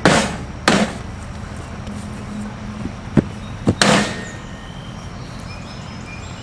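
Old metal toaster oven being smashed: hard blows strike it twice near the start, then a sharper knock about three seconds in and two more blows just after, each with a short clattering ring.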